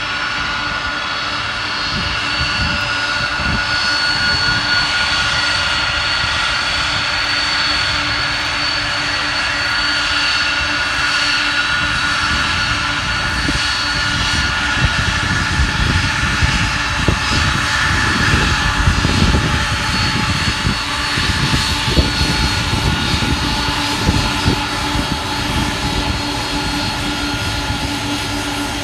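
Air China Boeing 747-400 taxiing with its four turbofan engines running at taxi power. There is a steady layered whine over a low rumble that grows a little louder as the jet draws near.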